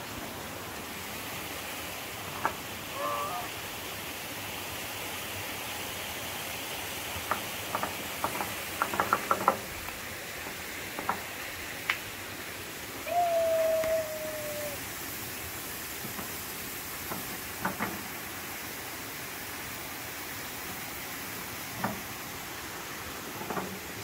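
Steady hiss of running water, with scattered light knocks, a quick cluster of them a third of the way in, and one short held tone a little past the middle.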